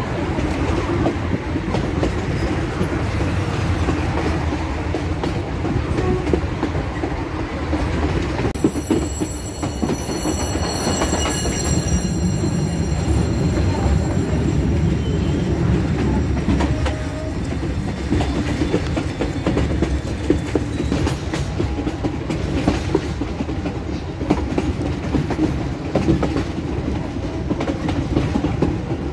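Passenger train running, heard from on board: a steady rumble of the wheels on the rails with the clickety-clack of rail joints. A faint high squeal joins in from about nine seconds in for several seconds.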